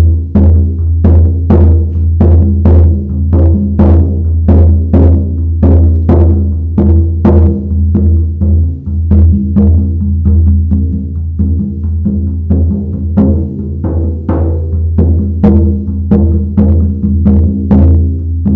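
Large ovoid shaman frame drum, about 60 by 50 cm, beaten in a steady beat of about two strokes a second. Each stroke is a sharp hit over a deep, sustained low ring that carries on into the next.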